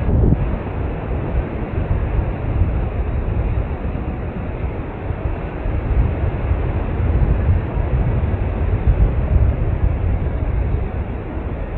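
Wind rushing over the microphone of a boom-mounted action camera on a paraglider in flight: a steady low rumble that swells and eases unevenly.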